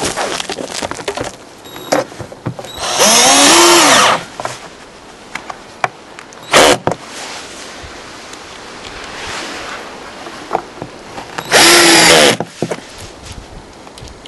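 Cordless drill run in two bursts of about a second each, its motor pitch rising as it spins up and falling as the trigger is let go, with a short blip of the drill in between and scattered knocks and clicks of handling.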